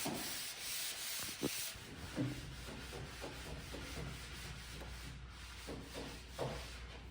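Wood being sanded in quick repeated strokes, stopping about two seconds in; after that, scattered light knocks over a low steady hum.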